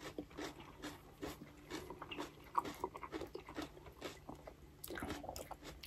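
Quiet close-up eating sounds: raw yellow bell pepper slices being chewed, with many small crunches and wet mouth clicks.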